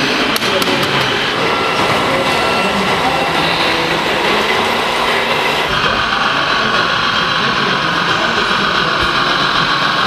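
Busy hall ambience: a crowd talking under the running of radio-controlled model trucks, with a few clicks near the start. The sound changes abruptly about six seconds in, to a steadier hum like a model truck's engine sound module.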